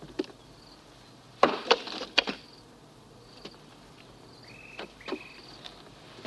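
Jungle ambience: short high chirps repeating every second or so over a faint steady hiss. A quick run of sharp knocks comes about a second and a half in, with a few softer ones later.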